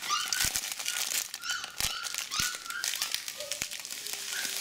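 Plastic bag crinkling and rustling as dry cereal is poured from it into a pot of boiling water, with scattered sharp crackles.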